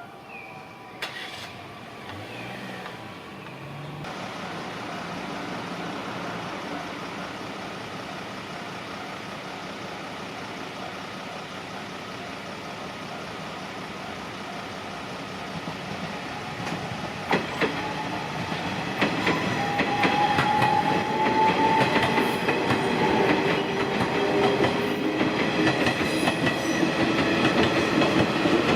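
A train approaching and passing on the rails, growing louder about two-thirds of the way through, with wheels clicking over the rail joints and steady high tones over the running noise.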